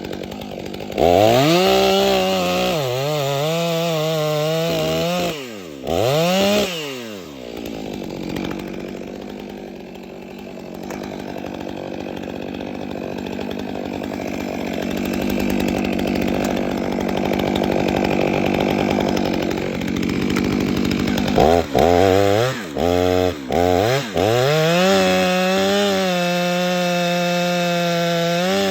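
Chainsaw cutting into a dead fir trunk. It revs high in bursts, then holds a long, lower and rougher stretch, with several short throttle blips near the end before it revs high again.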